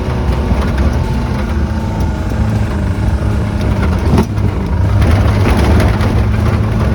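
Toyota Blizzard 4x4's engine running steadily under load as it drives off-road in four-wheel drive, with a sharp knock about four seconds in.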